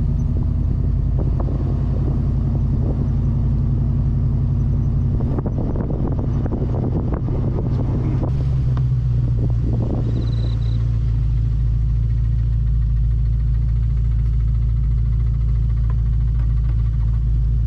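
Car driving: a steady low rumble of engine and road noise, with a few light knocks and rattles about halfway through.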